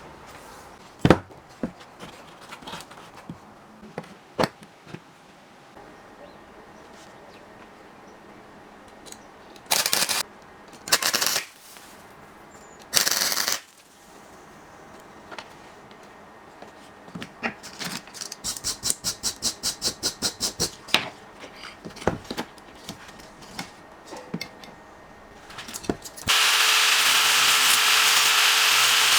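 Small workshop handwork: scattered metal clicks and taps, three short scraping bursts, and a quick run of about fifteen even strokes. Near the end a small power tool starts and runs steadily.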